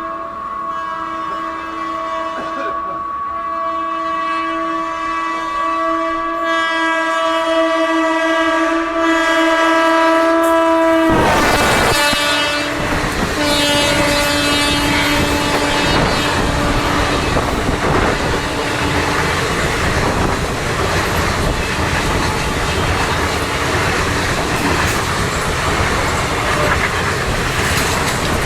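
WAP-4 electric locomotive horn sounding continuously as the express approaches, growing louder, its pitch dropping sharply about eleven seconds in as it passes. It keeps sounding at the lower pitch until about two-thirds of the way through. Meanwhile the coaches rush past with loud wheel-on-rail rattling and clatter, the "terrible track sound".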